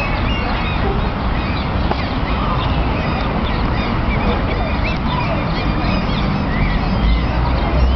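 Many birds calling and chirping in short, rapid notes, over a steady low rumble.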